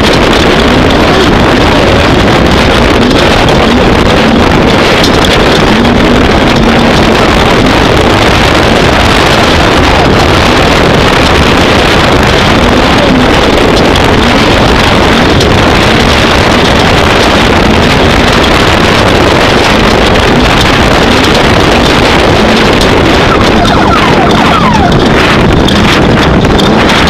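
Off-road race vehicle driving at speed: a very loud, steady mix of engine and rushing driving noise that overwhelms the microphone, with no let-up.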